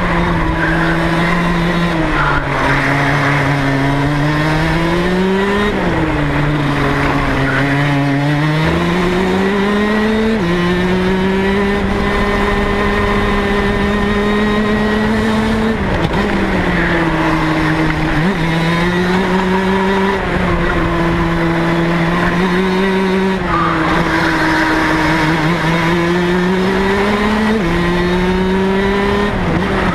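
Rotax DD2 125cc two-stroke kart engine running hard at racing speed. Its pitch climbs on the throttle, drops off into corners and holds high on a long stretch in the middle, with a few abrupt jumps in pitch.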